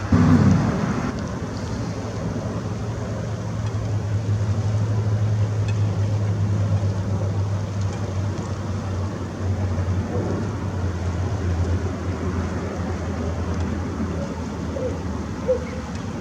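Steady low rumble under an even hiss of background noise, typical of distant motor traffic, with a louder burst at the very start that drops quickly in pitch.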